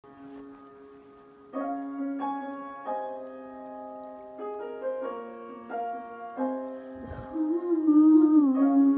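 Piano playing a slow song introduction, with notes struck every half second to a second that ring on. Near the end a louder sustained melody line with a falling bend joins it.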